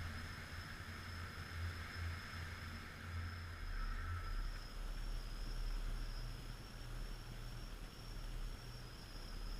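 Steady wind and rain noise from a typhoon picked up by a GoPro microphone, with a low rumble that shifts lower about four seconds in.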